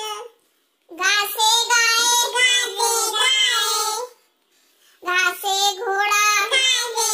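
A child singing a Hindi alphabet rhyme unaccompanied: two sung lines with a short silent pause before each, the first starting about a second in and the second about five seconds in.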